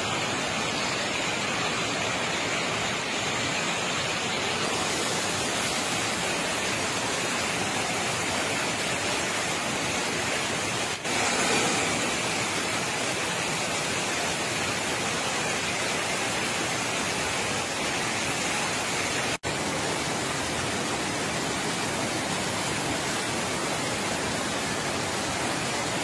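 Water rushing over a plastic-sheeted embankment and churning into a netted channel below: a steady hiss of white water that drops out briefly twice.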